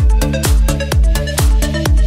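Electronic dance music with a steady thumping kick drum at about two beats a second, under bass and synth notes.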